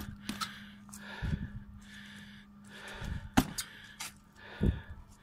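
Gloved punches landing irregularly on a post-mounted strike pad, some as heavy thuds and one as a sharp smack about three and a half seconds in, with hard breaths between them.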